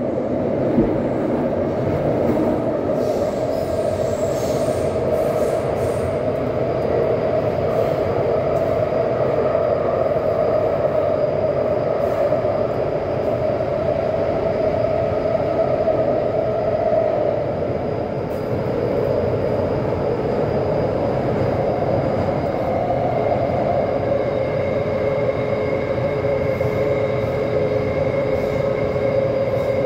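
Taipei Metro C371 train running, heard from inside the passenger car: a steady rumble of wheels on rail with a continuous whine over it. About three-quarters of the way through, the whine shifts and a second, higher tone joins it.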